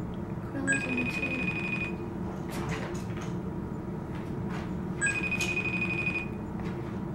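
Phone's FaceTime call ringing out, unanswered: two rings of a steady high tone, each about a second long and about four seconds apart.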